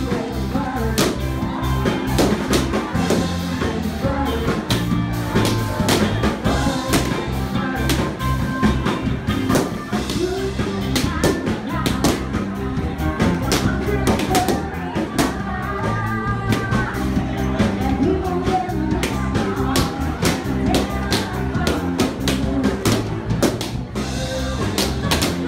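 Live band playing a pop-rock dance song with a steady drum-kit beat, bass and keyboard, and a woman singing over it.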